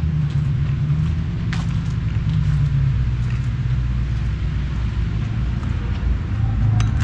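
A vehicle engine running steadily, a low rumble.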